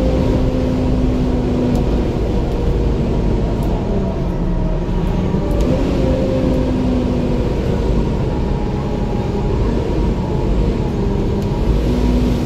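Volvo B7 double-decker bus's diesel engine running as the bus drives along, heard from the upper deck. Its note steps up and down in pitch several times.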